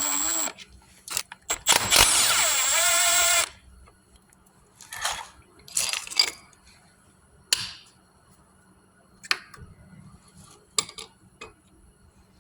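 Handheld power tool running in two loud bursts, a short one at the start and one about a second and a half long whose pitch drops, then scattered scrapes and clinks of metal parts being handled.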